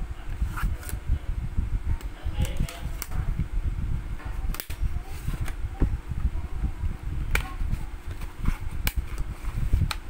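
Plastic external hard-drive enclosure being handled and turned over in the hands. Scattered sharp plastic clicks come at irregular intervals over steady low rubbing and scraping handling noise.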